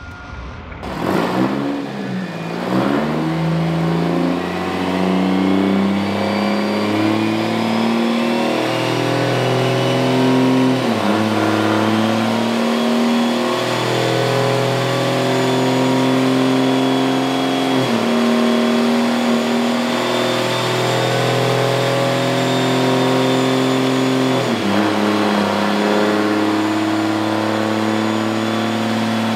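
6.7-litre Cummins inline-six turbo diesel running hard on a chassis dyno. Its pitch holds steady in long stretches broken by four brief dips. A big single S480 turbo whistles, rising over the first ten seconds or so and then holding.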